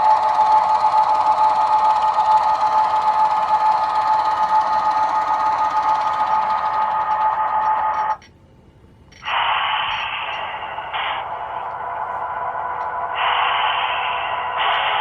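Diesel locomotive sound from a QSI Revolution DCC sound decoder in a model Baldwin sharknose locomotive, played through its small onboard speaker, so it sounds thin and tinny. It runs steadily with held tones, drops out almost completely for about a second around eight seconds in, then resumes with shifting loudness.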